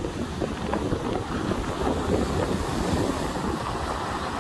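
Storm wind buffeting the microphone over the rush of breaking surf.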